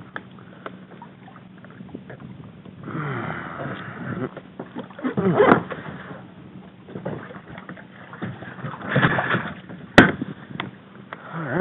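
Water slapping and splashing against a plastic kayak in choppy sea, in uneven bursts, with a single sharp knock about ten seconds in.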